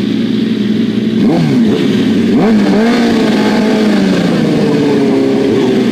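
Two sport bike engines running at a drag start line, revved repeatedly, so the pitch rises and falls several times over a loud steady run.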